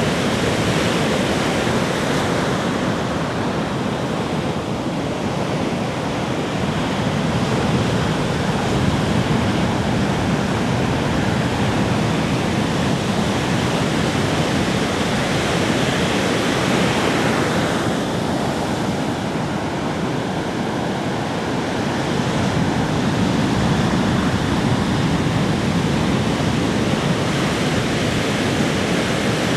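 Ocean surf on a beach: a continuous rush of breaking and washing waves that slowly swells and eases.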